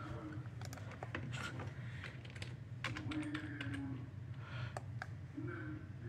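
Scattered light clicks and taps at a computer, over a low steady hum.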